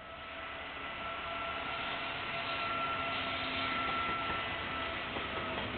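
KiwiRail diesel-hauled train approaching on the line, its rumble and a steady whine growing louder over the first couple of seconds and then holding close by. Heard through a security camera's microphone, which sounds thin and cut off at the top.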